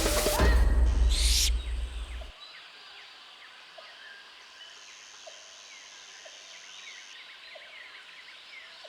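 Percussive music with a whoosh ends about two seconds in. It gives way to natural ambience: many birds chirping and calling, with a steady high insect drone that fades in and out.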